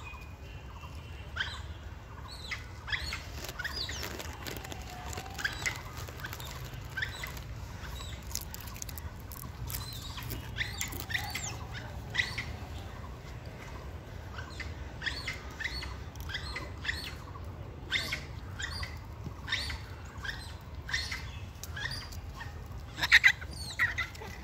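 Birds chirping, short repeated calls all through, mixed with scattered brief rustles and clicks over a low steady rumble.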